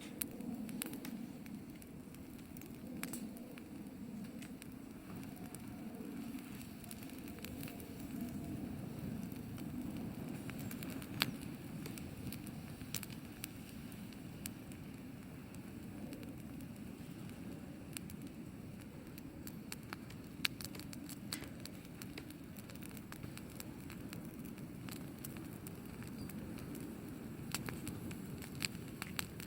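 Wood fire burning: a steady low rush of flame with scattered crackles and pops, a few of them sharper.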